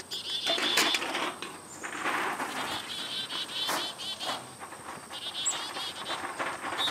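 Insects chirping: high-pitched chirps repeated in quick runs that come and go, with a few short clatters over them.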